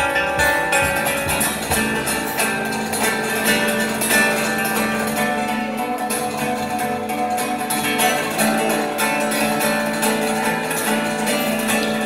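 Solo nylon-string classical guitar played live, a fast, busy passage of plucked notes and chords.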